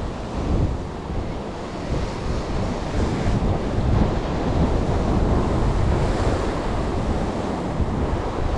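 Ocean surf washing and breaking against the base of a rocky sea cliff, a steady rush that swells and eases, with wind buffeting the microphone.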